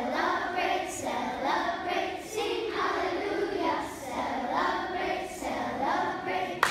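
A small group of children singing together.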